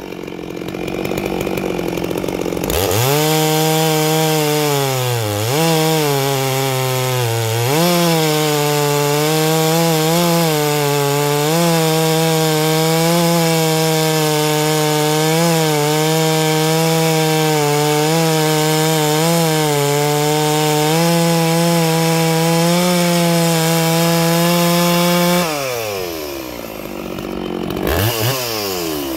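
Neo-tec NS892 chainsaw, an MS660 clone with a two-stroke engine, cutting through a log at full throttle on its factory muffler with the rear baffle plate removed. The engine note sags a few times early in the cut, then holds high and steady. Near the end the bar comes out of the log, the engine drops off and is blipped a couple of times.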